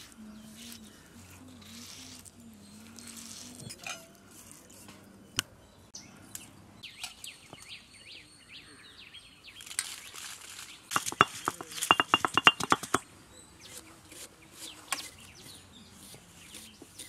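Knife blade clicking against a steel plate while slicing tomatoes, with a fast, loud run of sharp metallic clicks a little past the middle. Before that, a stone roller scrapes and knocks softly on a flat grinding stone.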